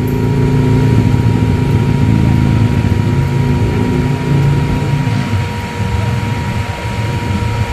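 Radiator cooling fans in the lower fairing of a liquid-cooled Harley-Davidson touring bike running with a steady whine, over the V-twin engine idling. The fans running are the sign that the bike's cooling system is working.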